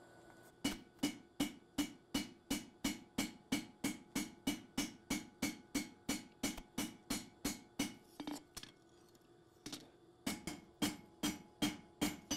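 Hand hammer striking a red-hot 52100 steel Bowie blade on an anvil to flatten the ricasso. The blows come in a steady run, about three a second, each with a short metallic ring. They pause for about a second about two-thirds of the way through, then carry on.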